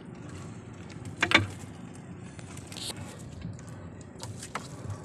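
Gill net being hauled hand over hand into a small outrigger boat: the net rustling over the side, with a few sharp knocks against the hull, the loudest about a second in, over a steady low wash of wind and water.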